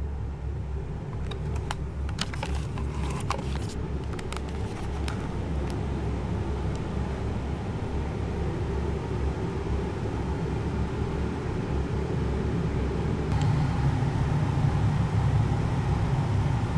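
Steady low rumble and hiss from a camera's on-board microphone as it fails, growing slightly louder toward the end, with scattered clicks in the first few seconds.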